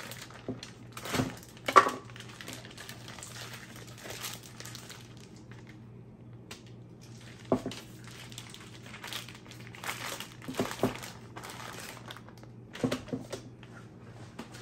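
Plastic vacuum packaging crinkling and rustling as a slab of pork belly is worked out of it by gloved hands, with a few sharper snaps among the rustling.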